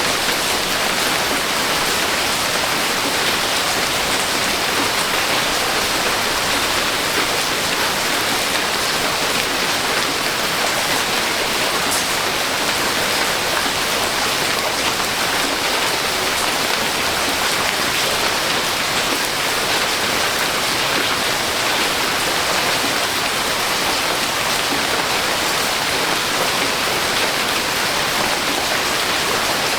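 Steady, dense rainfall, an even hiss of many small drops pattering.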